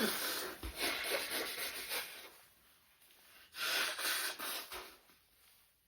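Rubbing, rustling noise close to the microphone in two stretches: one of about two seconds at the start, then a second of about a second in the middle.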